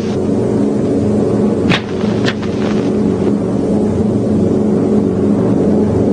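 Steady drone of a B-17 Flying Fortress's four Wright Cyclone radial engines in flight, with two short sharp clicks about two seconds in, half a second apart.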